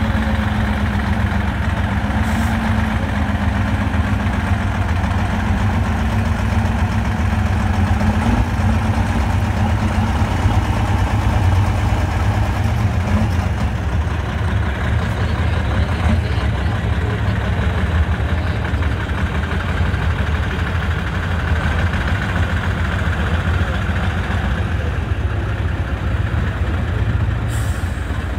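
Engine of a six-wheeled truck-trial racing truck running under load as it crawls through deep mud, a steady low drone.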